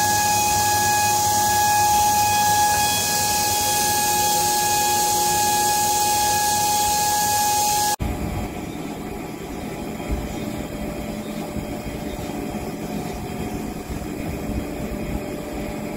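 Jewellery CNC engraving machine cutting gold bangles: a steady high spindle whine over a loud hiss from the cooling nozzle. About halfway through, this cuts off abruptly and gives way to a quieter, lower machine rumble and hum as a ring blank turns on the mandrel.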